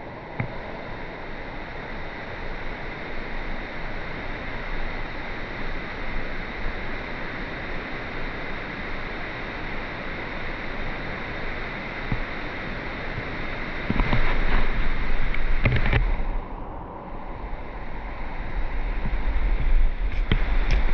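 Steady rushing of river water, with two stretches of low rumbling from wind on the microphone, partway through and again near the end.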